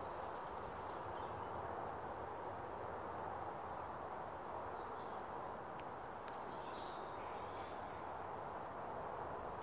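Steady rush of running stream water, with a few faint bird chirps high above it about six to seven seconds in.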